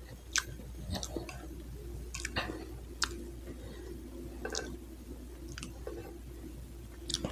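Close-up chewing of chocolate cake, with faint mouth sounds and short sharp clicks of a metal fork on a plate, about one every second.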